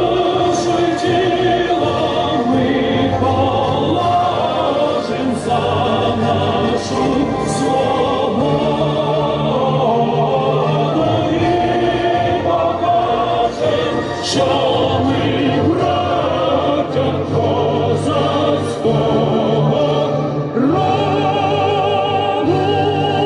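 A crowd of schoolchildren and adults singing together in chorus, with instrumental accompaniment.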